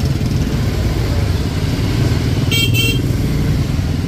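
Motor scooter engines running at low speed through a narrow lane, with a horn giving two quick high-pitched beeps about two and a half seconds in.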